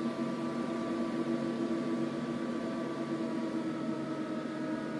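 Carbon pile battery load tester running under load: a steady whir and hum with several constant tones, and a higher tone joining about three and a half seconds in. The knob is being turned to draw current from a 22 Ah lithium car audio battery while its voltage is held at 12 volts.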